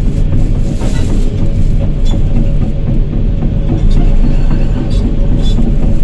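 Excavator's diesel engine running under load as the machine travels on its steel tracks, heard from the cab: a loud, steady low rumble with track clatter and a faint steady whine.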